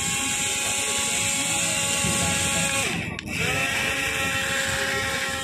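Small electric motor of a homemade matchbox helicopter running with a steady high whine. About three seconds in it cuts out briefly, then spins back up with a rising pitch and settles steady again.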